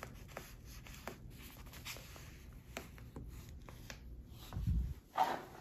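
Colored pencil scratching as it traces around a paper pattern piece laid on quilted fabric, in many short strokes. A soft thump comes about four and a half seconds in, followed by a brief rustle near the end.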